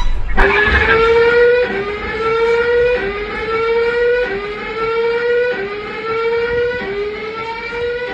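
Earthquake early-warning alarm sounding: a siren tone that rises over about a second, drops back and starts again, repeating steadily.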